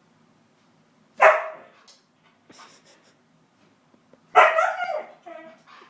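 Husky barking: two loud barks, one about a second in and a longer one past the middle, with a few shorter, quieter calls around them.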